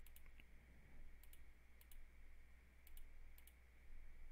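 Faint clicks of a computer mouse, mostly in quick pairs about once a second, over a low steady hum.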